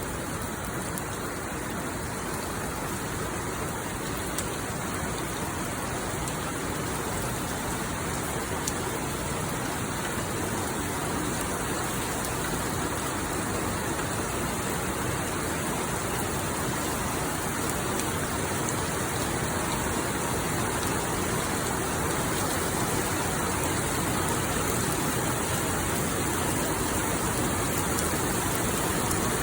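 Heavy monsoon downpour: a dense, steady hiss of rain, with a couple of small taps early on. It grows slightly heavier toward the end.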